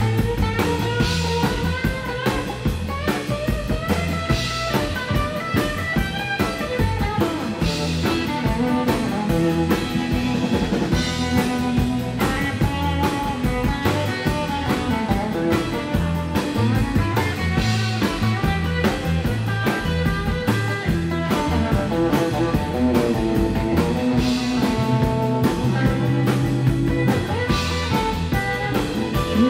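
Live rockabilly band playing: electric guitar lines over strummed acoustic guitar and a drum kit keeping a steady beat.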